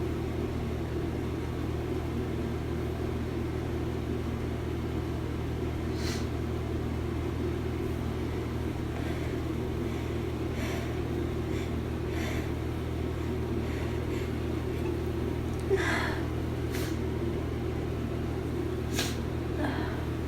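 A person with a head cold sniffling through a congested nose, a series of short sniffs, the loudest about sixteen seconds in, over a steady low hum.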